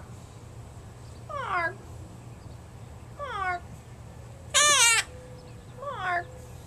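Quaker parrot giving four short calls, most of them sliding down in pitch, with one louder, wavering call about two-thirds of the way through.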